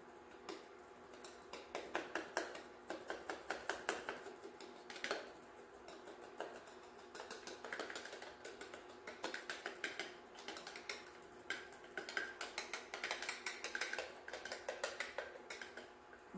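Small metal strainer tapped over and over to sift activated charcoal powder onto soap: runs of quick, light metallic clicks with short pauses between them.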